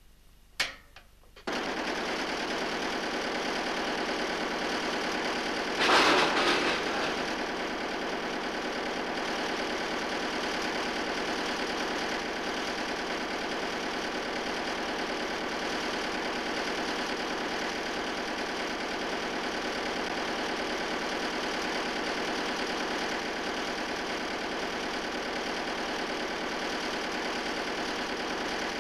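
Engine-driven machinery running with a loud, steady mechanical din that starts abruptly about a second and a half in. About six seconds in, a brief louder burst cuts through it.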